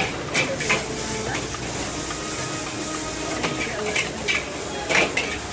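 Metal spatula scraping and clanking against a steel wok as fried rice is stir-fried, in about eight irregular strokes over a steady sizzle.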